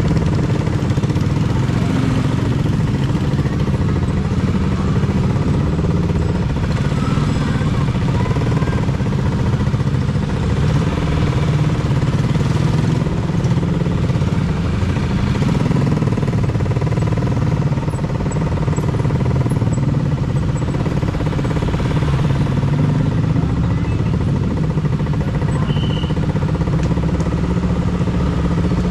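Honda CBR motorcycle engine running steadily under way, its pitch rising and falling a little with the throttle.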